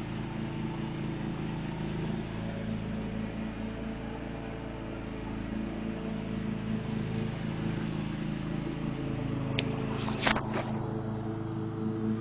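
John Deere riding lawn mower engine running steadily while mowing, with a few sharp clicks about ten seconds in.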